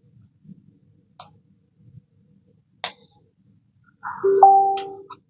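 Lego bricks clicking and tapping as they are handled and snapped together, a few sharp separate clicks. About four seconds in, a brief steady pitched tone lasting about a second is the loudest sound.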